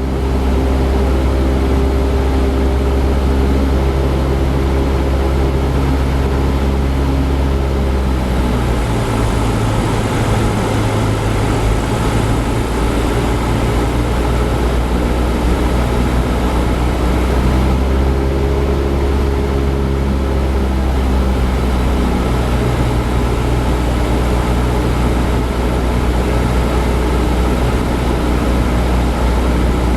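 Cessna 172 Skyhawk's piston engine and propeller running steadily, heard from inside the cockpit, with the engine note changing pitch about a third of the way in and again past halfway as the power setting changes on final approach.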